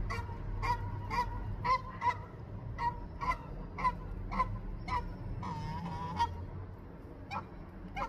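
A goose honking in a quick series of short calls, about two a second, then one longer wavering call and two more honks near the end: calling for its mate.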